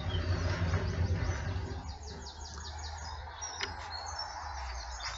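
Small birds chirping and singing repeatedly, over a low rumble that is heavier for the first two seconds. A single click comes about three and a half seconds in.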